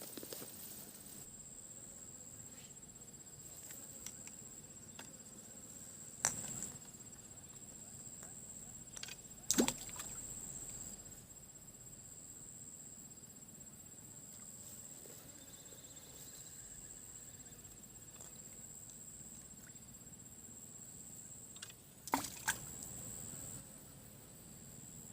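Quiet swamp ambience: a steady high-pitched insect drone, broken by a few short water splashes or knocks, about six, ten and twenty-two seconds in.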